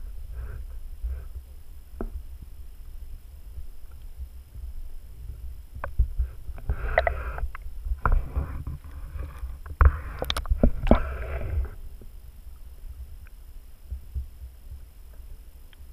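Sound picked up by a camera held underwater: a steady low water rumble against the housing with scattered sharp knocks, and a louder, busier stretch of knocking and watery noise in the middle.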